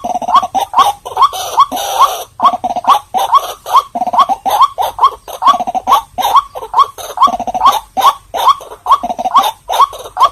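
White-breasted waterhen calling: a continuous run of short, croaking notes, about two to three a second, each with an upward hook in pitch.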